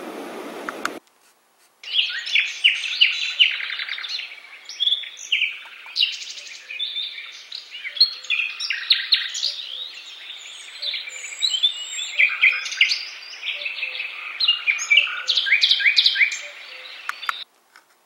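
ANFURIG HFD-600 white noise machine playing its 'Forest' sound through its speaker: recorded birdsong, many quick chirps and trills. A steady rushing noise from the previous setting cuts off about a second in, and the birdsong stops just before the end.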